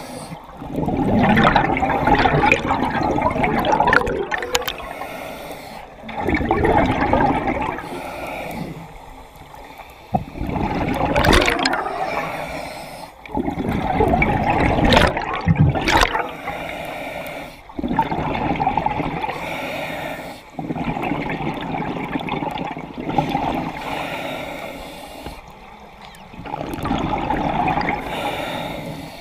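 Scuba diver breathing through a regulator underwater: bursts of exhaled bubbles about every four seconds, with quieter stretches between.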